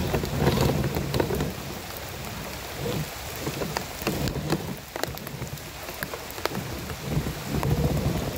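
Radio-controlled crawler trucks driving over leaf litter and twigs: a fluctuating rumble of the motor and drivetrain, with many small crackles and knocks as the tyres crunch and climb over debris. The rumble eases in the middle and picks up again near the end.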